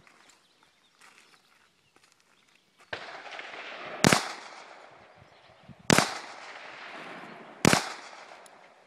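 Springfield 1911 pistol firing three single shots, about two seconds apart, each followed by a trailing echo.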